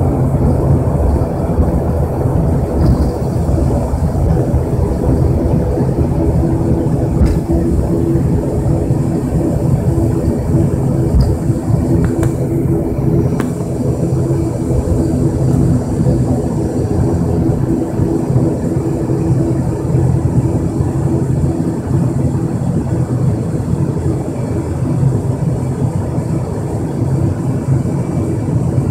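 ATR 72-500's Pratt & Whitney PW127 turboprop engines and propellers running at steady low power while taxiing, heard inside the cabin as a loud, even drone with a low steady hum.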